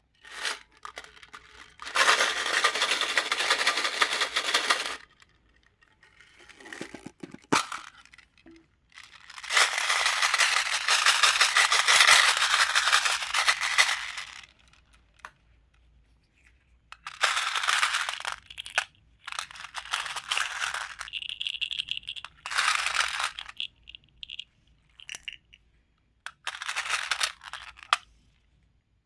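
Crinkly craft material being handled and torn in bursts of crinkling and tearing, the longest lasting about five seconds, with a brief high squeak a little after twenty seconds.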